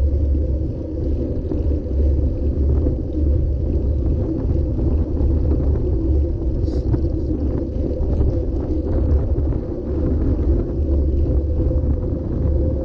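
Steady wind rumble on a GoPro's microphone, mixed with road noise from a bicycle rolling over cracked, patched asphalt.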